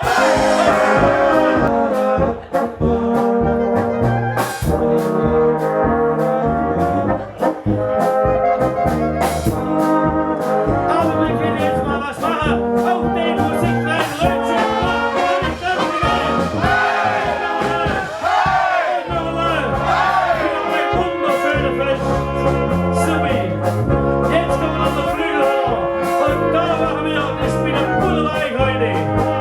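Bohemian-Moravian brass band playing a polka: sustained brass melody with trombones and trumpets over a steady bass line and drum beat.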